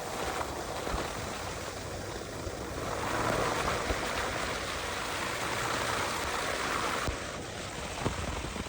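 2006 Toyota 4Runner rolling down a snowy forest road on chained tires: a steady rushing of tire and road noise that grows brighter for a few seconds in the middle, with a few faint knocks.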